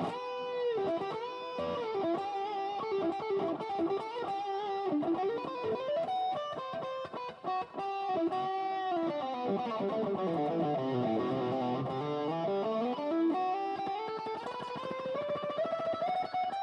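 Aria Pro II XR series ST-3 electric guitar playing a single-note lead line with bent and wavering notes. Partway through, the pitch slides smoothly far down and back up, and the line ends on a long held note.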